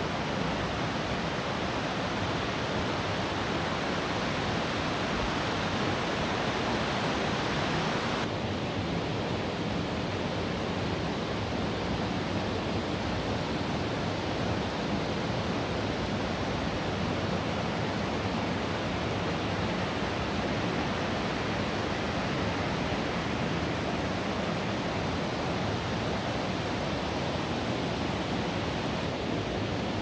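Steady rush of a rocky mountain stream, Zarı Çayı, flowing through the canyon. The higher hiss of the water drops abruptly about eight seconds in.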